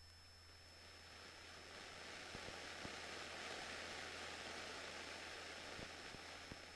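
Faint hiss of a radio or intercom audio feed that swells and then eases, with a few light clicks and a steady low hum underneath.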